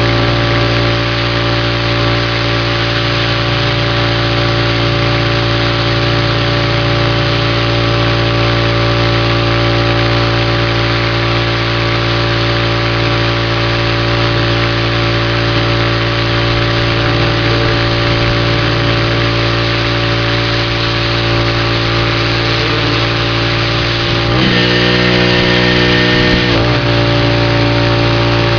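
Gas pressure washer engine running steadily under the hiss of the high-pressure spray from the wand. Near the end its note shifts for about two seconds, then settles back.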